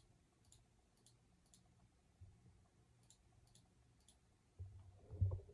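Faint computer mouse clicks, two sets of three about half a second apart, then a dull bump near the end.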